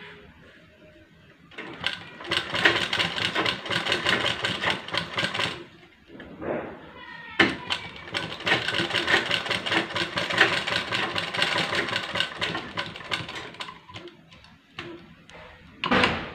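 Motorised sewing machine stitching fabric in two runs, about four and six seconds long, with a pause of a second or two between. A short, louder knock comes near the end.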